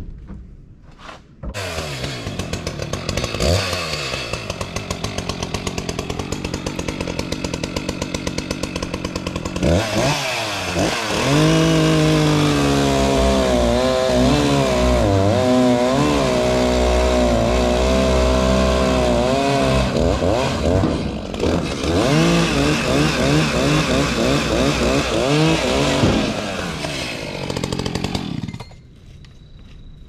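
Chainsaw starting about a second and a half in and running evenly, then revved hard from about ten seconds in, its pitch dipping and rising as it cuts into a log, and shut off near the end.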